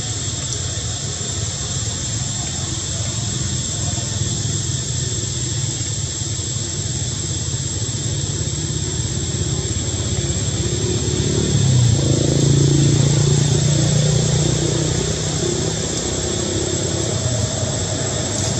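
Steady outdoor background noise with a thin high whine throughout. A motor vehicle's engine hum swells about twelve seconds in and fades a few seconds later.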